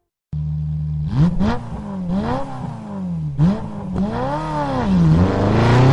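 Motorcycle engine running steadily, then revved several times, its pitch rising and falling with each blip. It starts and cuts off abruptly.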